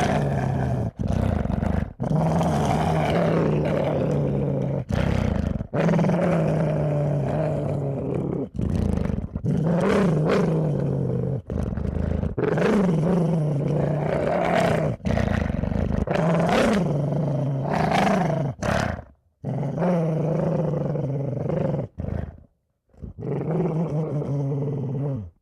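A dog growling: a long, continuous low growl broken by short pauses every second or two, with a longer break near the end.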